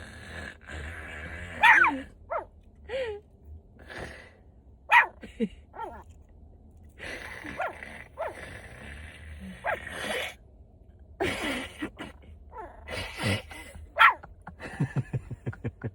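Sleeping Maltipoo snoring and snuffling: irregular breathy snorts mixed with short squeaky sounds that slide in pitch. Near the end comes a quick run of short snorts, about six a second.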